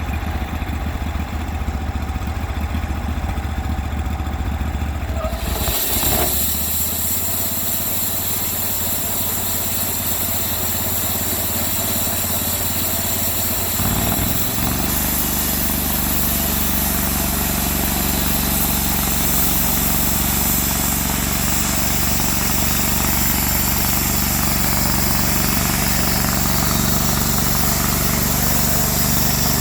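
Engine of a Cook's MP32 portable bandsaw mill running steadily. About six seconds in a strong, steady hiss joins it and the engine note shifts, and near fourteen seconds the engine changes pitch again and settles.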